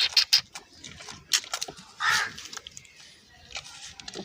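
An animal suckling milk from a goat's udder: a few sharp wet smacks, then a short animal call about two seconds in.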